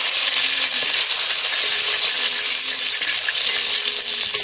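Fresh curry leaves sizzling in hot oil with mustard and cumin seeds, the tempering for a curry: a loud, steady hiss.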